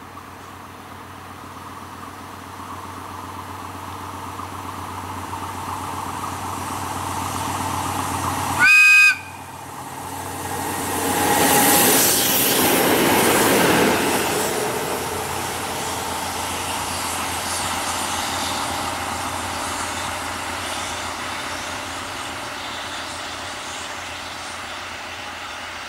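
A pair of FSE BB-series diesel locomotives running toward and past, with the engine sound growing steadily louder as they approach. A short, loud horn blast sounds about nine seconds in. The sound is loudest as they pass close by, then fades as they draw away.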